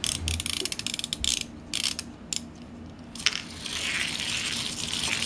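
Wooden Haba Terra Kids twirling prawn toy: a rapid run of ratcheting clicks as its pull-cord mechanism is pulled back, then about three seconds in it is let go and whirs as it spins fast on the tabletop.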